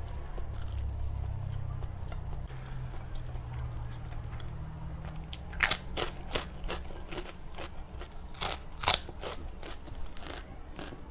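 Close-up eating sounds: chewing and crunching, with a run of sharp clicks and crunches a little past the middle, the loudest near the end, over a low rumble in the first half.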